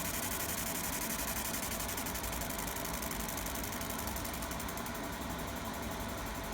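A 50 W fiber laser marking machine running a deep engraving pass on metal. It gives a steady machine hum with a fine, rapid buzzing hiss over it.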